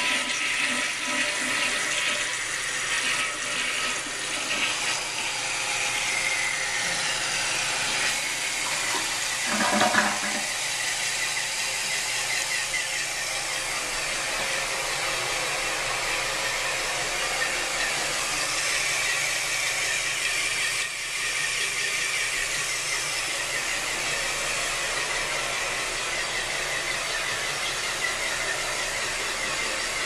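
Fluidmaster 400 fill valve refilling a 1986 Kohler Highline toilet tank after a flush: a steady hiss of water running into the tank, with a brief louder surge about ten seconds in.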